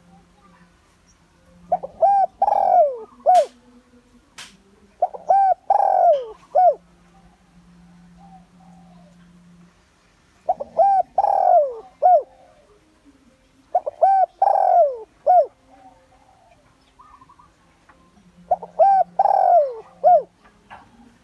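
Spotted dove cooing: five phrases, each a few short notes around a longer falling coo, spaced a few seconds apart.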